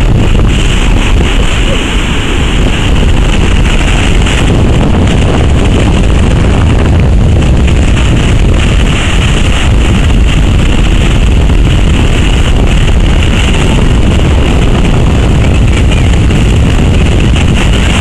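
Wind buffeting the microphone over the rush of heavy storm surf breaking on the shore: a loud, steady roar.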